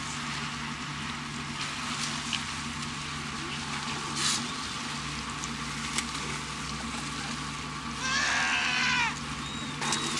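Sea lions calling from a colony: one loud, bleating call that falls in pitch and lasts about a second, about eight seconds in, with a brief fainter call about four seconds in. Under the calls runs the steady hum of a boat engine.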